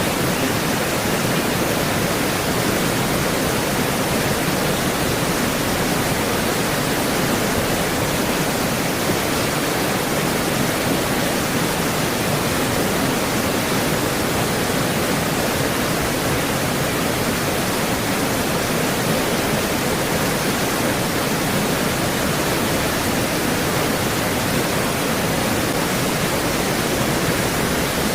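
Creek water rushing over its bed: a steady, dense wash of noise that does not change.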